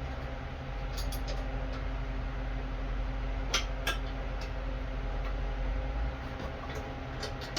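A few light metallic clicks and taps of small mower brake parts (spring, spacer, rod) being handled and fitted, over a steady background hum.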